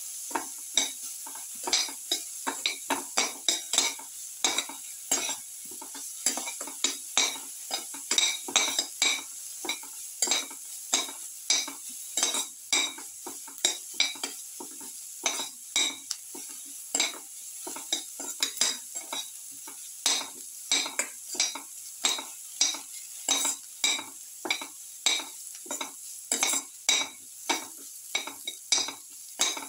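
Sliced onions sizzling in ghee in a metal pan while being stirred and scraped against the pan bottom, about two scrapes a second over a steady frying hiss.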